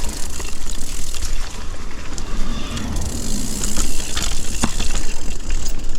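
Mountain bike clattering down a rough, rocky trail: tyres on dirt and rock with scattered sharp knocks and rattles from the bike, over a steady low rumble of wind on the microphone.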